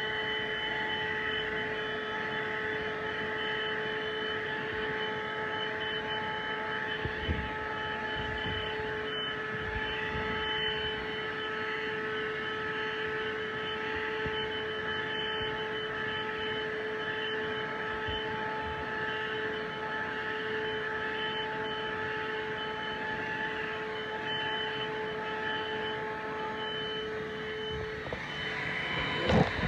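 Small 12 V handheld car vacuum running steadily, a motor whine over a rush of air. The whine cuts out near the end, followed by a short knock.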